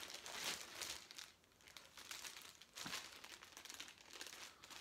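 Clear plastic rod sleeve crinkling and rustling as it is pulled off a new fishing rod. It goes quieter for a moment a little over a second in, then crinkles again.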